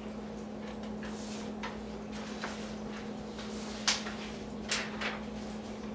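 Papers and small items being handled on a table: soft rustling with a few light knocks, the sharpest about four seconds in, over a steady low hum.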